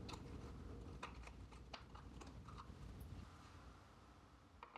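Faint, scattered small clicks and taps of a hand tool working a metal escutcheon on a wooden metronome case, with a slightly sharper click near the end.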